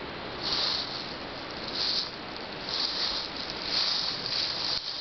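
Footsteps crunching and shuffling through dry fallen leaves on a forest trail, a rustling burst about once a second over a steady hiss.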